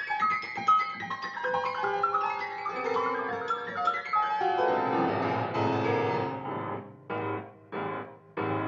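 Grand piano played solo: a fast flurry of notes, then louder sustained chords about halfway through, then three separate chords struck and left ringing, each cut short by a brief pause, near the end.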